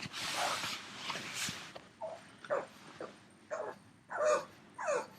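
A dog whimpering and yipping in about five short cries, each falling in pitch. The cries follow a breathy, hissing rush of sound at the start.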